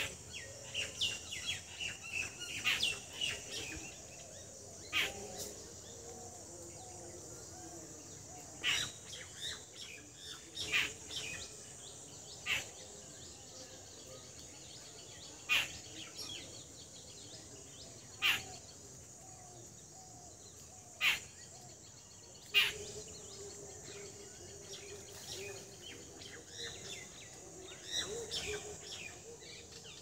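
Small birds chirping in the background over a steady high hiss, with sharp snips of scissors cutting paper every couple of seconds.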